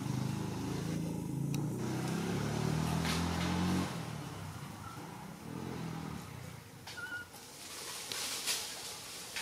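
A motor vehicle's engine going by, loudest for the first four seconds, then fading away over the next two or three as it passes.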